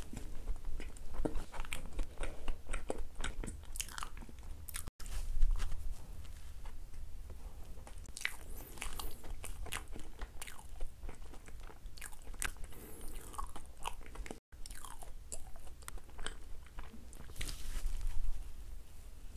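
Close-miked mouth sounds of a person biting and chewing sticky corn bread, with crisp crunching bites and many small crackles of chewing, broken by two very brief gaps.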